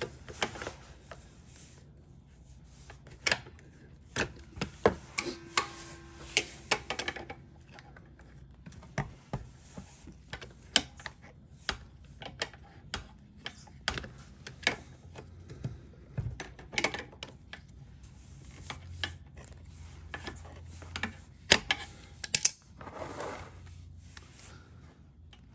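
Channel-lock pliers clicking and clanking against a tight factory Piaggio oil filter as it is worked loose by hand: irregular sharp metal clicks, often several a second, with pauses between.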